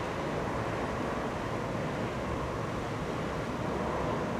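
D445 diesel locomotive hauling a regional train, heard from afar as a steady low rumble mixed with wind on the microphone.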